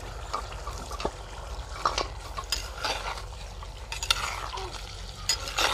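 Steel slotted spoon stirring boiled beef chunks into reduced yogurt in a clay karahi: irregular scrapes and clinks against the earthenware pot over a steady sizzle of the meat cooking.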